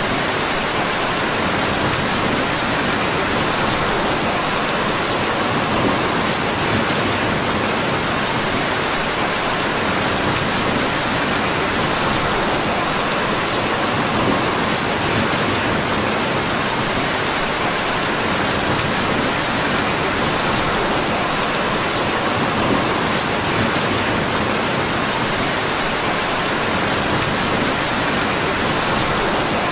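Steady rain falling, an even hiss without letup.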